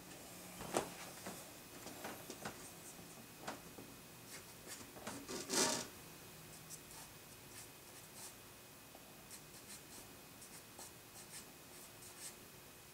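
Short, scratchy strokes of a pencil-type drawing tool on paper, drawing hair strands in a charcoal portrait. A sharp stroke comes about a second in, and the loudest, longest one a little before halfway.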